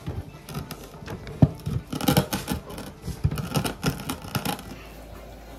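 A kitchen knife cutting on a board: irregular short knocks and clicks, several a second, that die away about four and a half seconds in.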